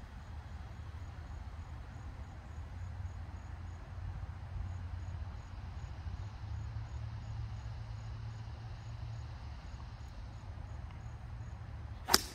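A golf club strikes the ball with one sharp crack near the end. Before it, a faint insect chirp repeats evenly about twice a second over a steady low rumble.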